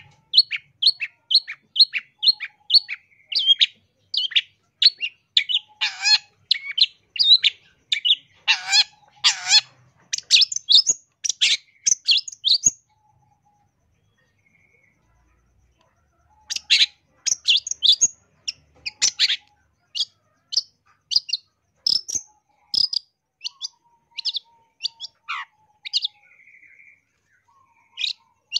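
Long-tailed shrike (cendet) singing a rapid, varied run of sharp, high notes, about three or four a second. It breaks off for a few seconds about halfway through, then resumes.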